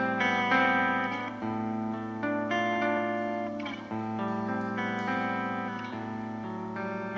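Electric guitar playing slow, held chords through effects, each ringing for a second or two before the next, with no drums.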